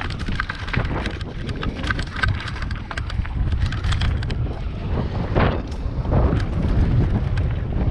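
Wind buffeting the microphone of a camera riding on a Titus mountain bike descending gravel singletrack, with tyre rumble and frequent clattering knocks from the bike over rough ground.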